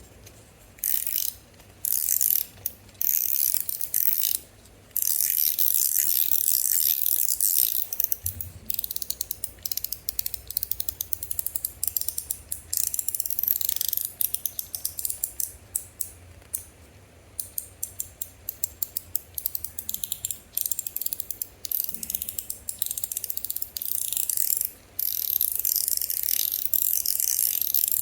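Metal fidget toys, Top B EDC Showhands in titanium and stainless steel, being fidgeted in the hand: long runs of rapid, crisp metallic clicking and ratcheting, broken by a few brief pauses.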